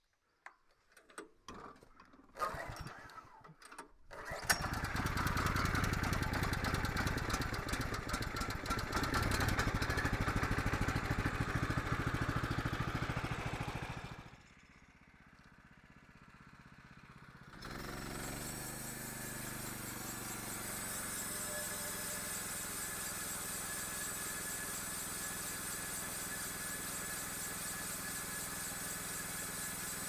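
Norwood LumberMate portable sawmill's gasoline engine starting about four seconds in and running steadily. After a short lull, the mill runs on with its band blade turning over the steel guide wheels while a wire brush is held against it to scrub off surface rust, with a thin high whine.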